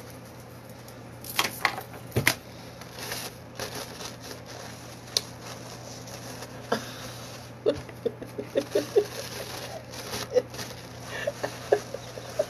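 Paper napkins rustling and crackling as they are unfolded and handled to make a bib, in uneven soft crinkles with a sharper crackle about two seconds in and a quick run of small ticks in the second half, over a steady low hum.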